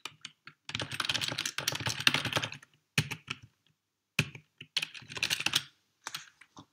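Typing on a computer keyboard: two quick runs of keystrokes, with a few single key presses between them and near the end.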